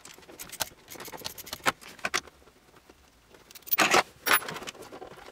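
Irregular small clicks and light metallic rattles of bolts and parts being handled around a Fox-body Mustang's manual shifter as it is taken apart. About four seconds in there is a louder scraping rustle.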